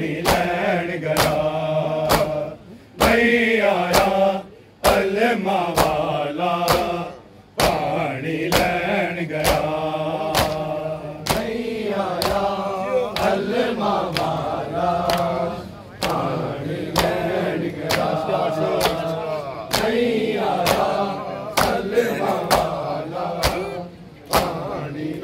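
A crowd of men chanting a Punjabi noha together, with a sharp rhythmic slap of matam chest-beating about every two-thirds of a second.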